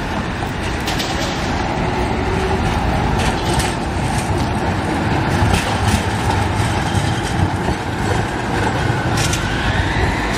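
Low-floor Alstom Cityway tram passing close by on street track: steady running noise of wheels and motors with a few clicks as it crosses rail joints, and a whine rising in pitch near the end.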